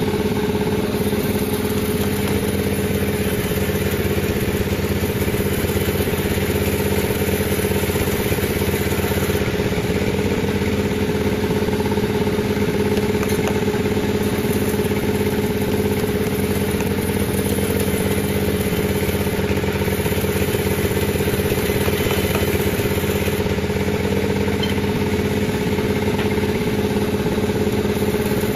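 Panda36 sawmill running steadily, a constant machine drone that holds one pitch without rising or falling.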